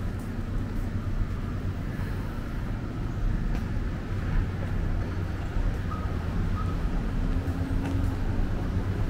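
Road traffic: car engines running and passing on a multi-lane street, a steady low rumble.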